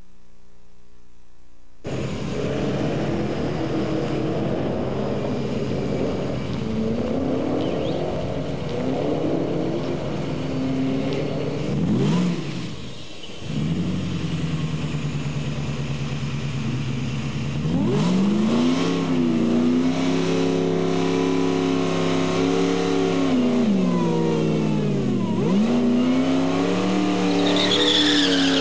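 Ford SVT Lightning pickup's GT40-powered V8 revving several times, then settling back to idle. From about halfway it is brought up to higher revs and held there, with one quick dip and recovery.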